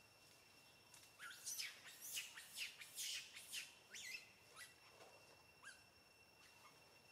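Faint bird chirping: a quick run of short, high, rising chirps starting about a second in and lasting some three seconds, then a few scattered single chirps.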